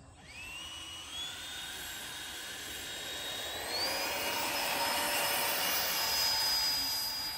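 Freewing 90mm F-18 electric ducted-fan model jet spooling up for its takeoff run. A whine rises in pitch within the first second, steps up again about four seconds in, and grows louder over an airy rush.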